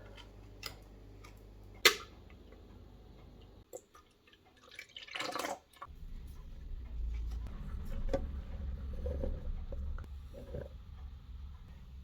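Ingredients going into a blender jar: a sharp clink about two seconds in, liquid pouring for about a second midway, and small knocks over a low hum.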